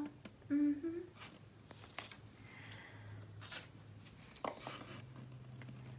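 Oracle cards being handled: a few short scrapes and taps of card stock as one card is put aside and the next picked up, with a brief hum of voice about half a second in, over a faint low steady hum.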